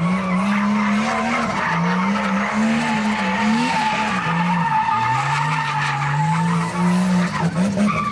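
Nissan Skyline R32 GTS-t's turbocharged straight-six held at high revs during a burnout, its pitch rising and falling again and again, over a steady squeal of spinning tyres.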